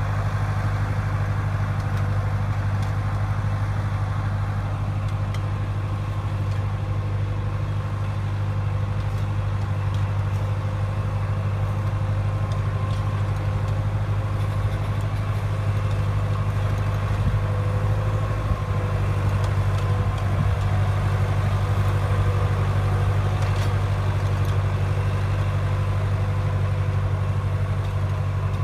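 A machine's engine running steadily at constant speed: a strong, unchanging low drone with a faint steady whine above it.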